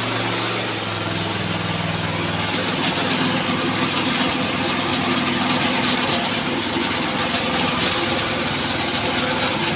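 Horizontal sawmill driven by a 25 HP electric motor, running steadily: a low hum with an even hiss over it.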